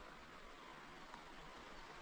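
Near silence: a faint, steady hiss of outdoor background noise.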